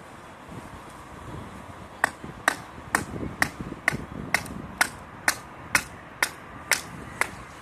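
Batoning: a thick wooden stick beats the spine of a Morakniv Pro Robust knife, driving the blade down through a wooden board to split it. Evenly spaced sharp knocks, about two a second, start about two seconds in.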